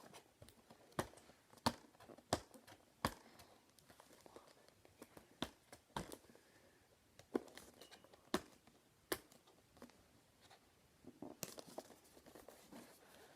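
Faint crinkling and irregular sharp clicks and taps of a computer mouse's retail packaging being handled and opened.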